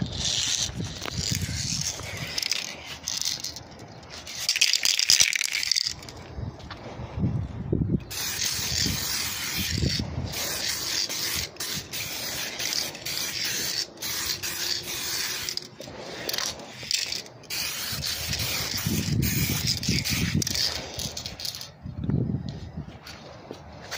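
2K clear coat aerosol spray can hissing in several spray passes, each a few seconds long, with short breaks between them.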